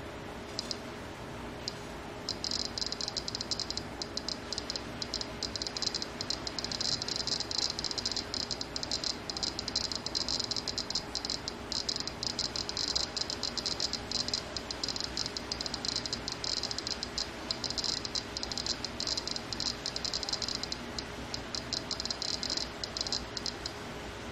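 Piezo buzzer of a solid-state gamma radiation detector clicking rapidly and irregularly, around seventeen clicks a second, each click one detected gamma ray. The fast rate is the sign of a radioactive sample held close to the sensor. The clicking starts about two seconds in and stops just before the end.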